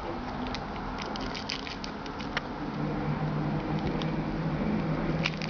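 Light clicks and rustling of trading cards and card packaging being handled, with a faint low steady tone in the second half.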